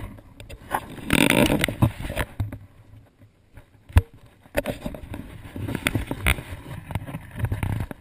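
Footsteps and irregular knocks on a wooden plank walkway, with rubbing and wind noise on a chest-mounted GoPro. A rush of noise comes about a second in, and the loudest knock about four seconds in.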